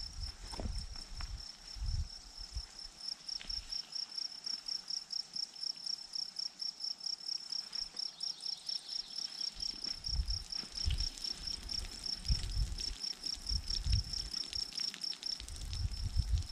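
An insect chirping in a steady high-pitched trill that pulses evenly at about five beats a second. Low thumps of wind or handling on the microphone come and go underneath.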